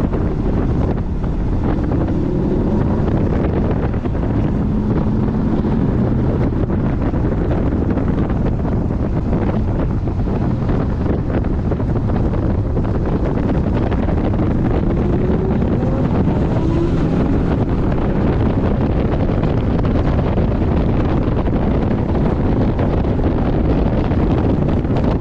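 Heavy wind buffeting the microphone as a Porsche 718 Boxster GTS is driven at track speed. Its engine note sits faintly beneath the wind, rising and falling in pitch.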